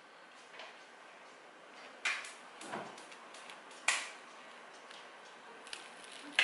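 A handful of short, sharp clicks and knocks over quiet room tone, the loudest about two and four seconds in.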